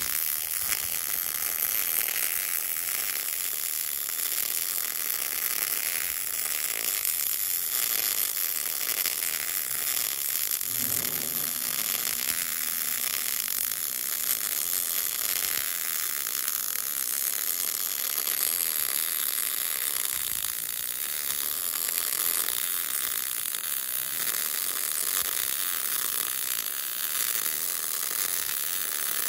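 MIG welding arc crackling and sizzling steadily as a vertical-uphill fillet weld is run.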